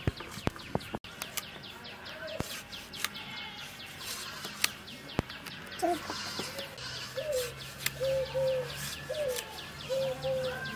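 Small birds chirping busily, with scattered sharp clicks as a tomato is sliced against a boti blade. From about halfway, a chicken clucks in a run of short calls about twice a second.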